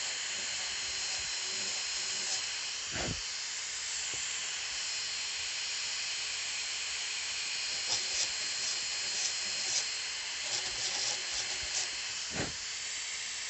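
High-speed air-turbine dental handpiece running with a steady hiss and a thin high whine, an inverted-cone bur cutting the floor of the cavity.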